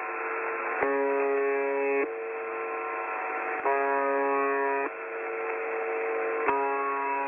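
Synthesized alert tones from a mock Emergency Alert System broadcast, band-limited like a radio or phone line. A steady electronic tone runs over a hiss, and three times a lower, buzzier tone sounds with it for about a second.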